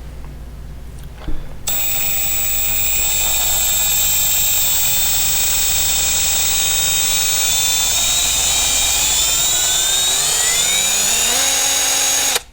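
Milwaukee M12 Fuel 2564-20 3/8-inch right angle impact wrench running on speed setting 2. The motor starts a couple of seconds in, runs with a steady high whine for about ten seconds, and cuts off suddenly at the end.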